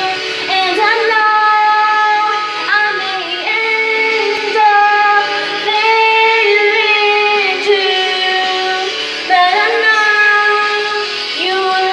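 A high voice singing a slow melody of long held notes that step and slide from one pitch to the next.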